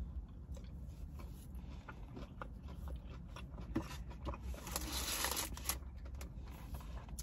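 A man chewing a fried chicken nugget with his mouth closed: soft crunches and small wet mouth clicks, a little louder around five seconds in, over a low steady hum.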